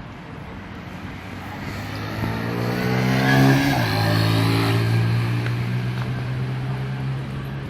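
A motor vehicle passing close by: its engine grows louder, drops in pitch as it goes past about halfway through, then fades slowly away.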